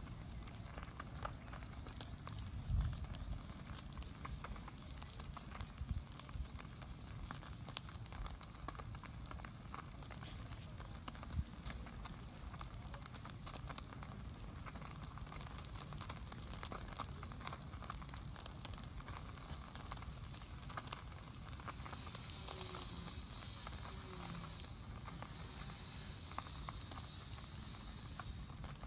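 Open wood cooking fire crackling, with a steady run of small pops and a couple of louder knocks, about three seconds in and again near eleven seconds.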